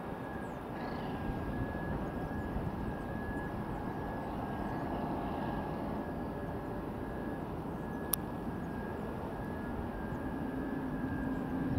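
Distant Auckland Transport AM class electric multiple unit running along the line: a steady low rumble with a thin steady whine above it. There is a single sharp click about eight seconds in.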